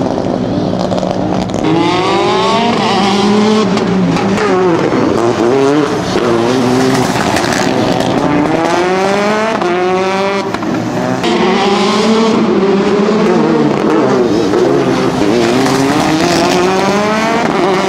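Mitsubishi Lancer Evo IX rally car's turbocharged 2.0-litre four-cylinder engine revving hard, its pitch rising and dropping back again and again as it accelerates, shifts gear and lifts through tight turns. It grows louder near the end as the car passes close by.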